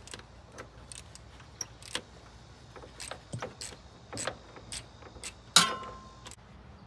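Scattered light metallic clicks and taps as a thermostat housing bolt is worked loose and drawn out of a Jeep Cherokee engine. One louder metal clink rings briefly about five and a half seconds in.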